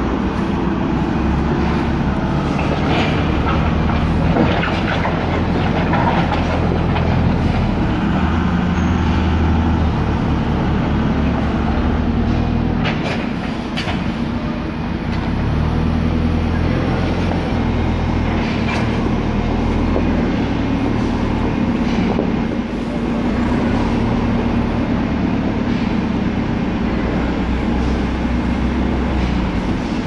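Diesel engine of construction machinery running steadily at idle, with a shovel now and then scraping and tossing sand and gravel.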